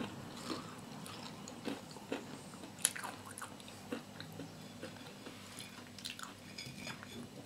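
Faint chewing and biting of battered fried bananas, with scattered small crunches and clicks and one sharper click about three seconds in.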